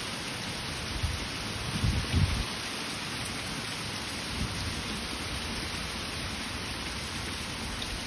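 Heavy rain falling steadily, an even hiss, with a brief low rumble about two seconds in.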